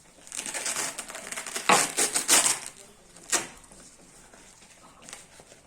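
Blood pressure cuff being taken off the arm, its hook-and-loop fastener torn open in several rasping pulls. The loudest pull comes about two seconds in, then a short sharp one over a second later.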